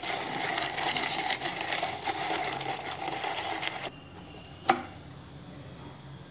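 Hand-operated food chopper working through tomato pieces, a dense rattling of blades and food for about four seconds. It stops, and a sharp plastic click follows about a second later.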